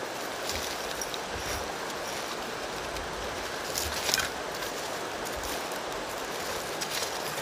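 Hands and a wooden digging stick scraping and rummaging through charcoal and ash in a pit fire, with a few light clinks of charcoal about four seconds in, over a steady outdoor hiss.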